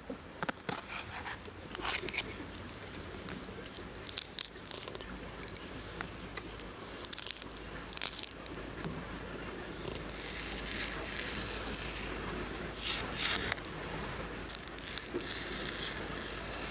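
Close hand-work sounds of food preparation: irregular scraping, crinkling and sharp little clicks, with a louder burst of scraping about thirteen seconds in.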